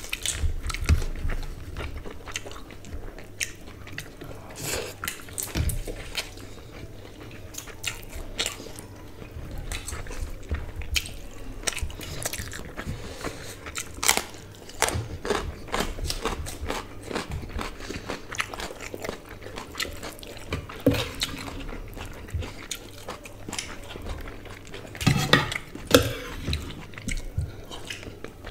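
Close-up eating sounds of two people chewing rice and curry, with irregular wet smacks and clicks. A sharp crunch of a raw carrot being bitten comes about halfway through, and a louder clatter of a serving spoon against the curry bowl comes near the end.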